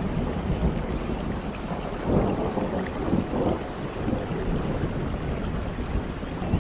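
Steady rain with a low rumble of thunder that swells about two seconds in and fades over the next couple of seconds.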